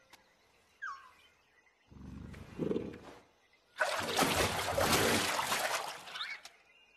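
Cartoon alligator sound effects: a low growl about two seconds in, then a loud roar lasting a couple of seconds as its jaws open wide.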